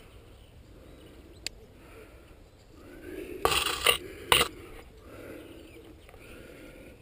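Scraping and rustling close to the microphone from a climber moving up rock, with a click about a second and a half in and two short, loud scrapes about a second apart in the middle.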